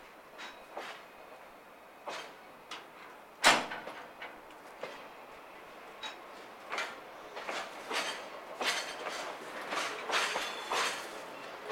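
Freight container wagons rolling slowly over rail joints and points during shunting, their wheels making irregular metallic clacks that come more often toward the end. One sharp, much louder clank comes about three and a half seconds in.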